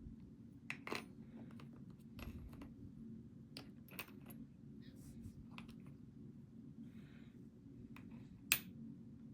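Small metal lock parts clicking and tapping as they are handled during disassembly, irregular light clicks with one sharper click about eight and a half seconds in.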